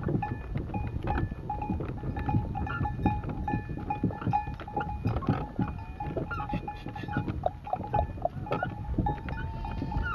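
Camel cart moving through sand behind a flock of sheep: continual knocking and creaking of the wooden cart and harness, with a steady ringing tone that keeps breaking off and a few bleats from the flock.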